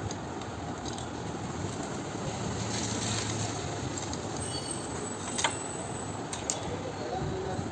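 Steady background traffic-like noise with a few sharp metallic clicks of hand tools on engine parts, one about five and a half seconds in and another a second later.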